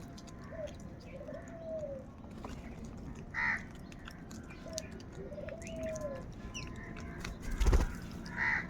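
Crows cawing twice, a few seconds apart, over a slow rising-and-falling call that repeats every few seconds. A loud thump comes near the end.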